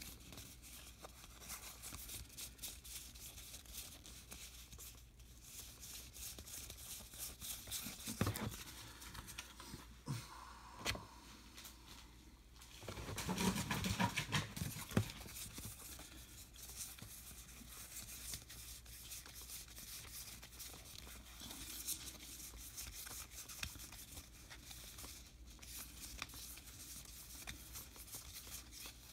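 Stack of Topps Heritage baseball cards being flipped through by hand, card stock sliding and flicking against card stock in a run of small papery clicks. A louder stretch of handling comes around halfway through.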